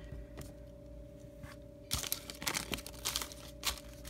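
Crinkling and rustling of a foil trading-card pack wrapper and cards being handled, in a quick crackly run from about halfway through.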